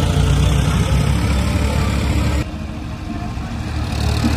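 Farm tractor diesel engines running steadily under load while pulling land levellers through loose sand. The sound drops abruptly in level about two and a half seconds in.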